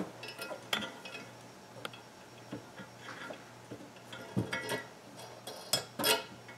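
Light metallic clinks and taps of steering hardware being handled on a cloth-covered table: an eye bolt's nut being run down hand tight at the quadrant, with the wire rope and its clamps shifting. The clicks are scattered, with a few sharper knocks, the loudest near the end.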